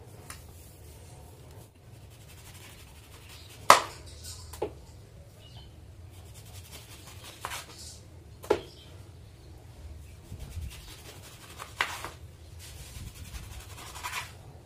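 Kitchen knife cutting an orange on a wooden cutting board: a few sharp knocks of the blade and fruit on the board, the loudest a little under four seconds in, with rubbing and handling noise between.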